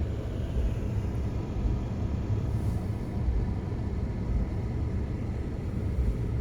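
Steady low road and engine rumble from inside a Jeep while it is being driven.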